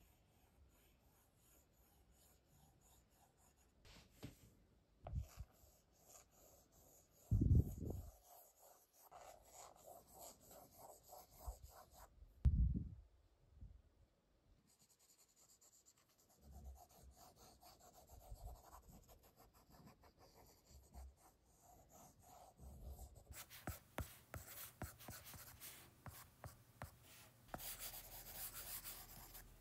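Stylus tip scratching and tapping on an iPad screen in quick drawing strokes, faint, getting busier near the end. Three dull low thumps stand out in the first half.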